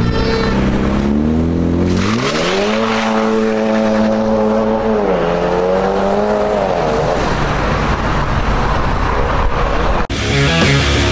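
BMW 530e G30's exhaust through an M Performance muffler kit as the car accelerates away, the engine note rising in pitch for a few seconds, holding, then dropping and rising again about halfway through before fading. Music cuts in suddenly near the end.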